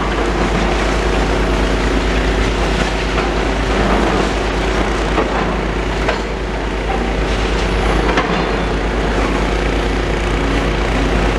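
Demolition excavators running steadily, with scattered knocks and clanks of rubble being worked.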